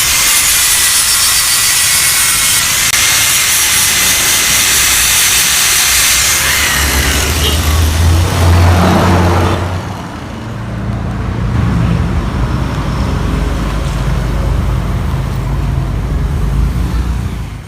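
Power tool, most likely an angle grinder, working steel exhaust pipe with a loud, hissing whine. About seven seconds in the whine drops in pitch as the tool spins down, and a lower, steadier mechanical rumble carries on after it.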